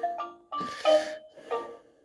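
Electronic sound effects from a Peppa Pig Spaceship toy's speaker: a quick run of short electronic notes mixed with hissy bursts, each starting and stopping within a fraction of a second.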